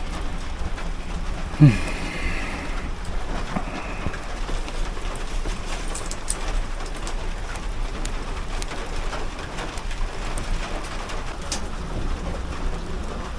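Steady rain falling on an armored vehicle, heard from inside. About a second and a half in there is a brief low sound that drops in pitch, and a few faint clicks.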